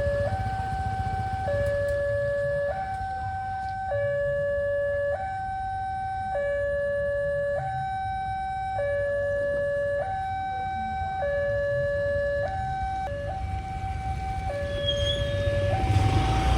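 Railway level-crossing warning alarm sounding a two-tone electronic hi-lo signal, stepping between a higher and a lower tone about every second and a quarter, the warning that a train is approaching and the barriers are closing. A low steady rumble runs underneath, and a louder rushing noise swells in near the end.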